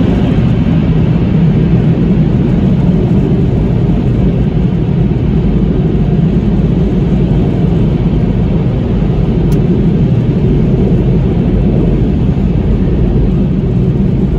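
Automatic car wash air-dryer blowers running, a loud, steady rush of air over the car, heard from inside the cabin.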